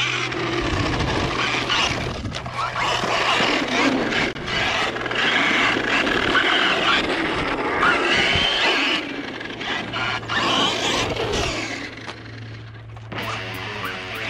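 Traxxas Rustler 4x4 VXL RC truck driving on a dirt track. Its brushless electric motor whines, rising and falling in pitch as it speeds up and slows, over the noise of its tyres on loose dirt.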